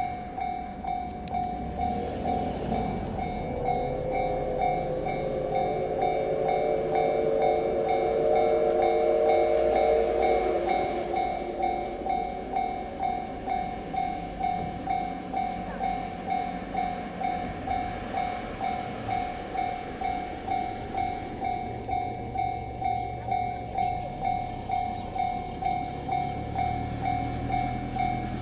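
Japanese level-crossing warning bell ringing steadily, about two electronic dings a second. From a few seconds in, the C57 180 steam locomotive's chime whistle sounds for about eight seconds over the bell. Near the end, a low rumble of the approaching train builds under the bell.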